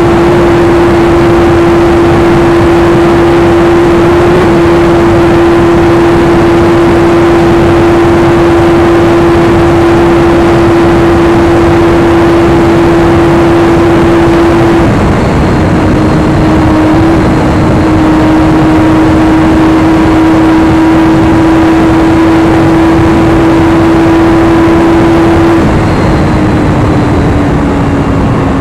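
Kawasaki Ninja 1000SX's inline-four engine held near top speed in sixth gear, a steady high engine note under heavy wind rush. About three seconds before the end the throttle is eased off and the note falls as the bike slows.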